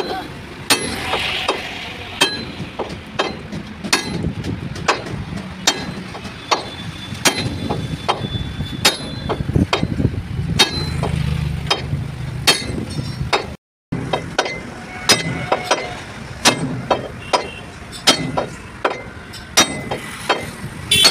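Hammer blows on the steel dump body of a tipper truck, sharp metallic knocks at roughly one a second, irregular, some with a short ring. The sound cuts out for a moment about two-thirds of the way through.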